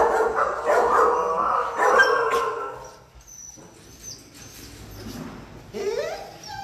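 Dogs barking in shelter kennels: a dense run of overlapping barks for the first two or three seconds, then quieter, with a short rising whine near the end.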